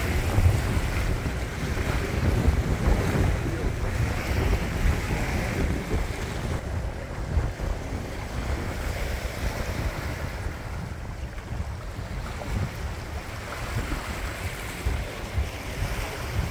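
Wind buffeting the microphone in gusts on the deck of a sailboat under way, over the wash of choppy river water against the hull; it eases a little after about six seconds.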